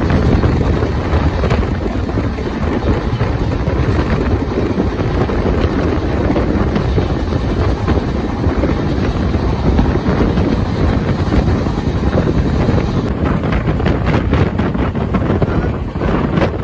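Passenger train running along the line, a loud steady rumble with wind rushing over the microphone. From about two-thirds of the way in, a quick run of sharp knocks.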